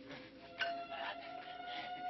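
Quiet film score music: a few long held tones that come in about half a second in.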